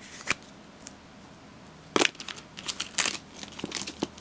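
Clear plastic card sleeve crinkling as a trading card is slid into it and pressed flat by hand. There is one soft tap near the start, then a run of sharp crackles from about halfway through.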